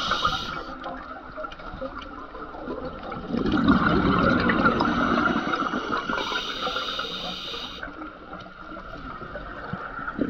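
A scuba diver's regulator breathing underwater: hissing inhalations and a long bubbling rush of exhaled air that swells about three seconds in.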